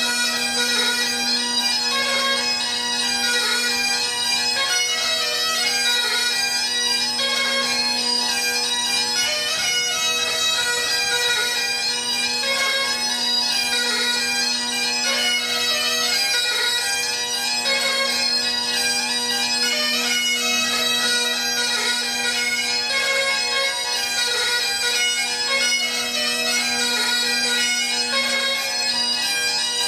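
Great Highland bagpipes playing a continuous tune over their steady drones.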